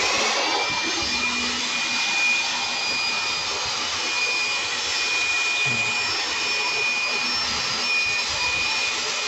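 Build Skill high-speed electric air blower running at full speed: a steady high whine over rushing air. It finishes spinning up in the first moment, then holds level.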